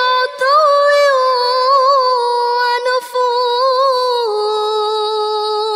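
A woman's voice reciting the Quran in a melodic chanted style, drawing out the closing words of a verse in long held notes with slight ornamental waver. About four seconds in, the note drops and is held lower to the end.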